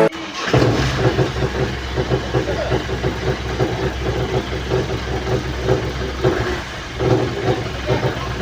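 Mahindra Bolero pickup engine idling with a steady low rumble and an uneven pulsing throb.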